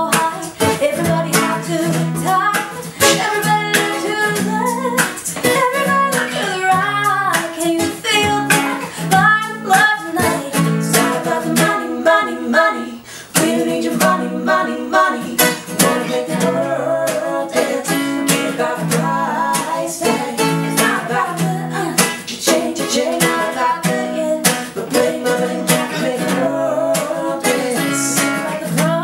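Strummed acoustic guitar with a wavering lead melody line carried above it, in a live acoustic duo performance.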